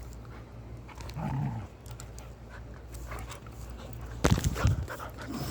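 A dog vocalizing, with a short pitched sound about a second in and panting, then a louder brief noisy burst about four seconds in.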